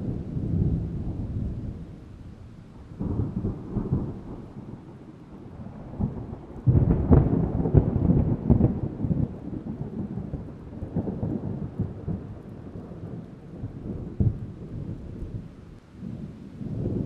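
Distant thunder rolling in several rumbles, the loudest about seven seconds in, over soft steady rain.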